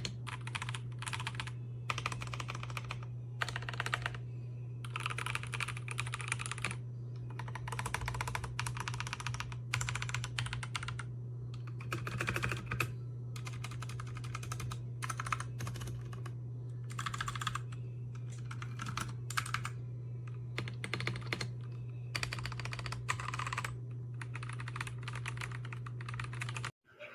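Typing on a CPSTECH K86 hotswap mechanical keyboard: rapid key clicks in bursts of a second or two, with short pauses between, over a steady low hum. The sound cuts off just before the end.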